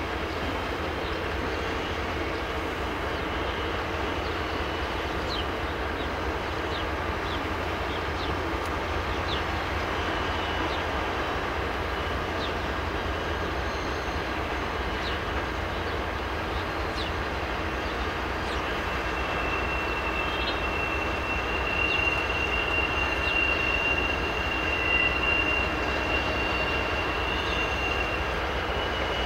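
Freight train behind diesel locomotives rolling slowly through a rail yard with a steady running noise. From about twenty seconds in, a thin high wheel squeal holds for some eight seconds.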